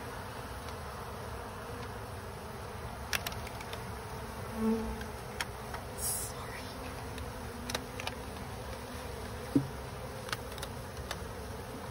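Honey bees buzzing steadily around comb being handled during a colony removal, with a few light clicks scattered through.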